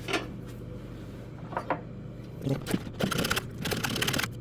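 Hand plane working a scrap-wood board down to a marked line: a couple of light knocks early on, then from about two and a half seconds in, scraping cuts with one longer stroke near the end.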